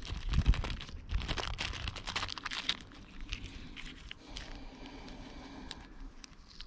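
Hands working the fuel filter part and its new seals: a dense crackling rustle for about three seconds, then quieter, with a few sharp clicks near the end.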